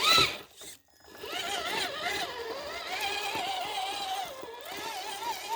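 Radio-controlled crawler truck's electric motor and geared drivetrain whining as it drives, the pitch rising and falling with the throttle.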